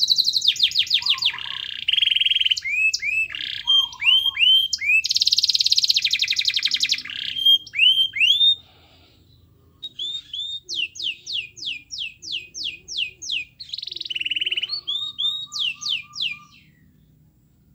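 Domestic canary singing in rapid trills and rising whistled notes. The song breaks off for a couple of seconds about halfway through, starts again with a run of rising notes about six a second, and stops shortly before the end.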